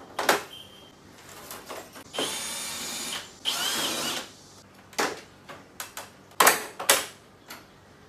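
Cordless drill-driver running in two bursts of about a second each, about two seconds in, as it unscrews the air-conditioner indoor unit's plastic casing. Sharp clacks and knocks from the casing being handled come before and after, the loudest a pair about six and a half seconds in.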